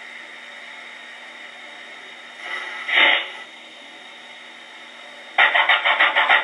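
Steam-locomotive sound effects from a QSI Titan sound decoder, played through the speaker of a Bachmann C-19 large-scale model: a steady hiss, and a brief louder burst about two and a half seconds in. Near the end a loud, fast rhythmic beat of about six strokes a second starts abruptly.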